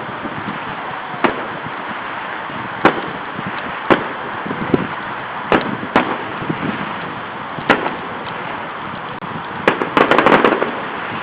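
Fireworks going off: single sharp bangs about every one to two seconds over a steady rushing background, then a quick burst of rapid crackling near the end.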